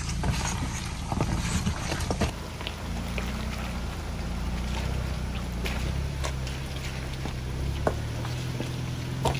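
A Ford Bronco Everglades' 2.3-litre EcoBoost four-cylinder runs low and steady at a slow off-road crawl. Scattered clicks and knocks come from the tyres rolling over wet rocks and mud.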